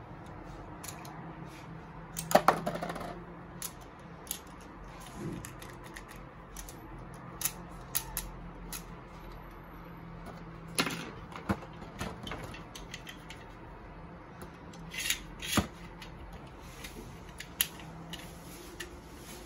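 Scattered plastic and metal clicks and clatter of Infinity Nado spinning-top parts and a launcher being handled and snapped together. The loudest rattle comes about two seconds in, with more clusters of clicks later.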